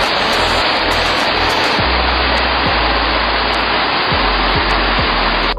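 Rushing water of a small waterfall cascading down a rock channel: a loud, steady hiss that cuts off suddenly near the end. Background music with a bass line plays underneath.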